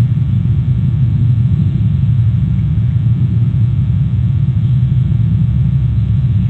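Steady low rumble with no distinct events, the constant background noise picked up by an outdoor nest camera's microphone.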